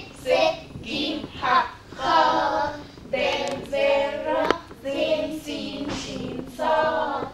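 Children singing a song together, with a woman's voice among them and held notes; no instruments stand out.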